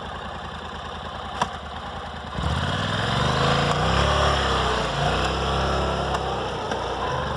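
Honda NC700's parallel-twin engine idling, with a single sharp click about a second and a half in, then revved from about two and a half seconds in, its pitch rising and falling a couple of times before easing back. It runs smoothly with no rattles.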